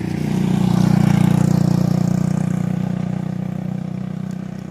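A motor vehicle passing by on the road, its engine swelling to a peak about a second in and then fading away.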